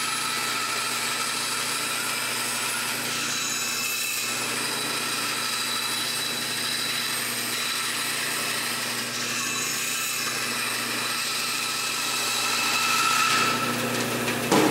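Porter-Cable band saw running and cutting through a thin wooden board: a steady machine whine with the rasp of the blade in the wood, a little louder near the end.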